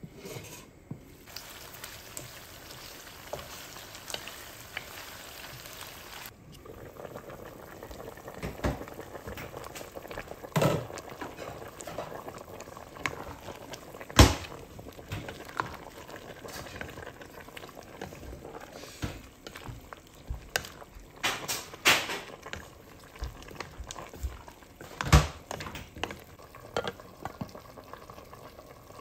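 Pork and vegetable soup boiling in a stainless steel pot, stirred with a wooden spatula. Several sharp knocks of the utensil against the pot are heard, the loudest about fourteen seconds in.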